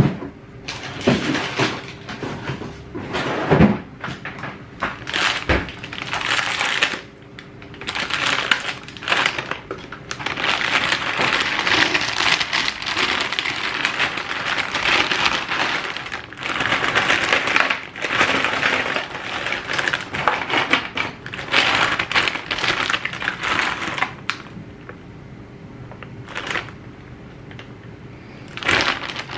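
Frozen crinkle-cut fries being shaken out of a plastic bag onto a metal baking tray: the bag crinkling and the frozen pieces clattering onto the tray. It starts as scattered clicks and short bursts, runs as a long dense rustle through the middle, and dies away near the end.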